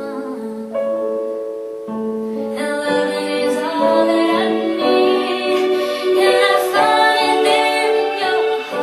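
A young woman singing a slow ballad in long held notes, over a piano accompaniment.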